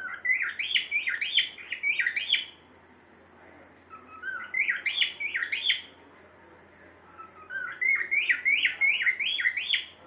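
A pet cockatiel whistling a song: three phrases of quick rising-and-falling notes, each about two seconds long, with short pauses between them.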